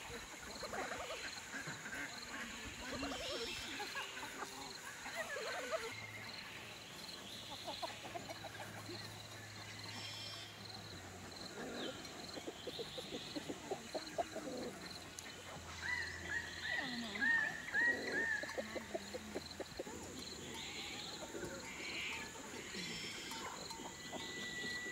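Free-ranging chickens clucking softly around a feeding bowl, with other farm-animal noises and scattered bird calls, including a short run of repeated chirps about two-thirds of the way in; a faint steady high hiss lies underneath.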